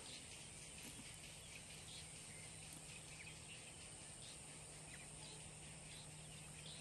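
Faint outdoor ambience: a steady hiss and low hum with scattered faint, short high chirps.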